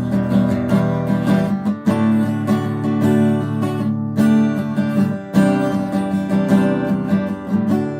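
Acoustic guitar strummed in a steady rhythm, changing chord about two seconds in and again past the five-second mark.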